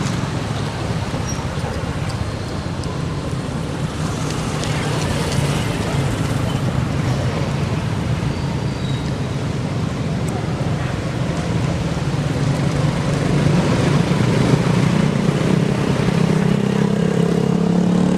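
A motor vehicle engine running over steady traffic noise. Its pitch rises near the end as it speeds up.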